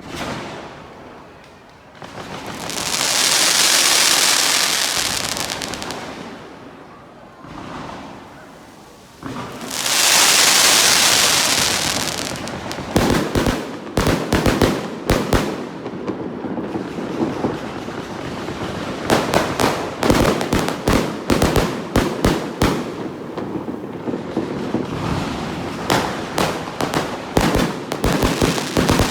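Fireworks display: two long hissing swells of sparks, each lasting a few seconds, then from about halfway through a dense run of rapid bangs and crackling reports.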